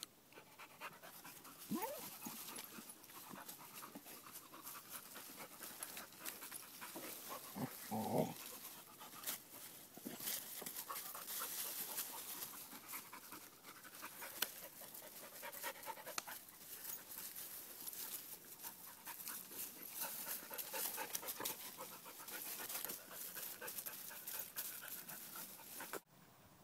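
A dog panting, with a short louder sound about eight seconds in; the panting drops away just before the end.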